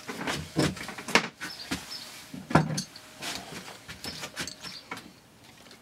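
Handling clicks and knocks of a metal quick-connect fitting and tools at a hose-reel inlet: a few sharp clicks in the first three seconds, then quieter taps that fade out near the end.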